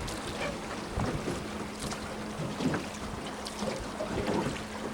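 Boat motor running with a steady hum, with wind noise on the microphone.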